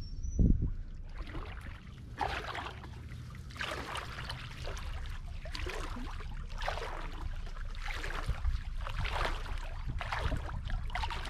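Footsteps wading through shallow tidal water and mud, with a sloshing splash at each step at a steady walking pace of about one step every two-thirds of a second.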